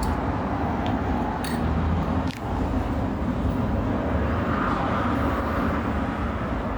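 Spatula scraping dried-out thermal paste off a graphics card's GPU, with a few light clicks, over a steady low rumbling background noise.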